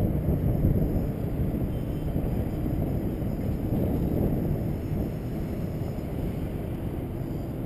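Wind buffeting the microphone, growing a little quieter toward the end, with the faint whine of a small tricopter's electric motors and propellers in flight at a distance.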